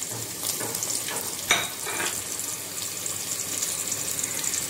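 Chopped onions and whole spices (bay leaf, cloves, cardamom, cinnamon) sizzling steadily in hot oil in a pot. There is one sharp tap about one and a half seconds in.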